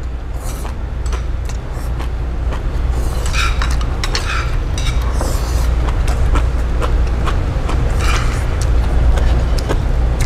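Scattered clinks of cutlery and dishes at a dining table over a steady low rumble, with a few brief hissing sounds.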